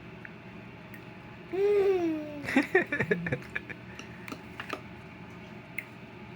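A baby making a drawn-out vocal sound about a second and a half in, sliding slightly down in pitch, then a few short sounds, the kind of funny noise a baby makes while eating durian.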